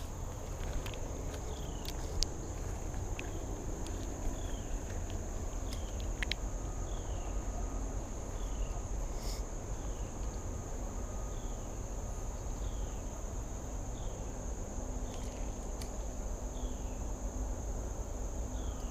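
Steady high-pitched drone of an insect chorus, with short falling chirps repeating about once a second and a few faint clicks over a low rumble.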